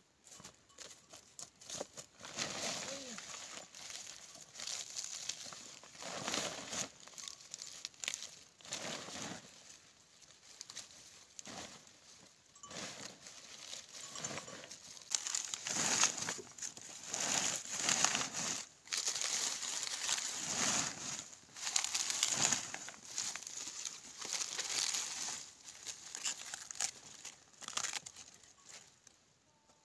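Crinkling of a woven plastic sack and rustling, tearing cabbage leaves as napa cabbage heads are trimmed and packed into it, in irregular bursts that grow busier in the second half.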